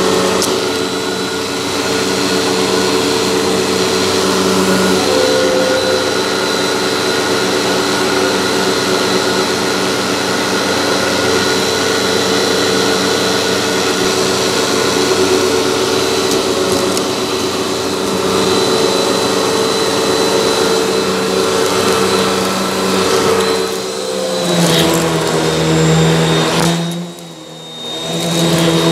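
Hoover WindTunnel 12-amp upright vacuum running steadily with its brushroll on shag carpet, sucking up clumps of fluff. Near the end its pitch shifts and the sound briefly drops away before picking up again.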